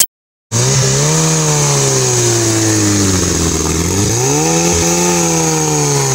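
Off-road buggy's engine running hard under load, starting abruptly about half a second in. Its speed sags a few seconds in, then climbs sharply and eases back down as the wheels dig through tall grass.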